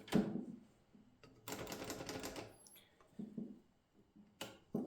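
Erika 60 portable typewriter's mechanism being worked, most likely its carriage lock lever and carriage. There is a sharp click, then about a second of clattering mechanical noise, then another sharp click near the end.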